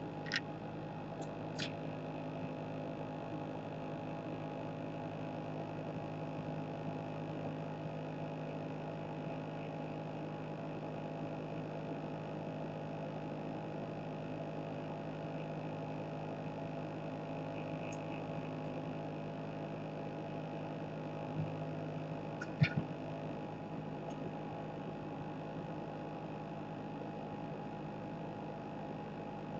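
Steady electrical hum of workbench equipment, with a few small clicks near the start and a sharper tap later on.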